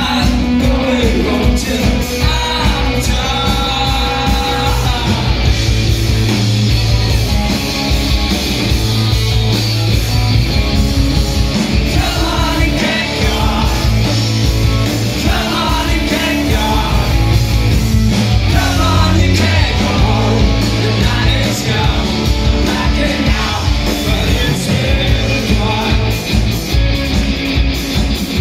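Indie rock band playing live: distorted electric guitars, bass guitar and a steady drum beat, with a sung lead vocal, heard from within the audience.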